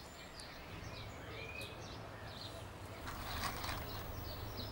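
Scattered short high chirps of birds, one rising, over a low steady hum.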